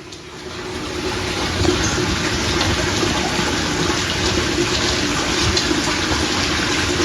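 Water rushing steadily, rising over the first second and then holding.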